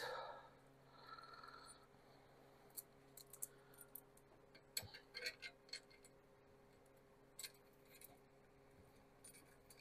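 Faint, scattered small metallic clicks and taps as bolts, nuts and lock washers are fitted by hand onto steel seat brackets, over a low steady hum, with a cluster of clicks in the middle.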